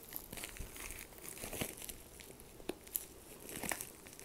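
A plastic mailer bag crinkling in irregular crackles as hands handle it and pull at its sealed end to open it.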